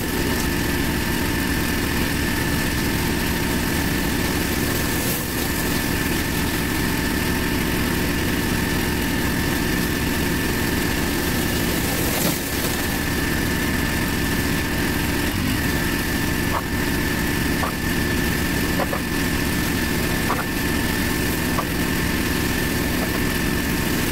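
Pressure washer running steadily while a rotary surface cleaner sprays block paving: a constant drone with a high whine held over it and a hiss of water spray.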